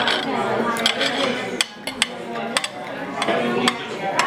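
Cutlery clinking against plates and dishes, a string of sharp clinks over indistinct voices at the table.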